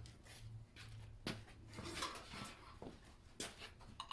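Scattered light metallic clinks and knocks, about five spread over the few seconds, from hand tools and the oil filter adapter being worked off a Mopar 360 small-block.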